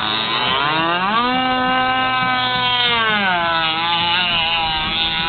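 Radio-controlled speedboat's motor revving up about a second in and holding a high, steady pitch for about two seconds, then easing off to a lower steady note as the boat runs across the lake.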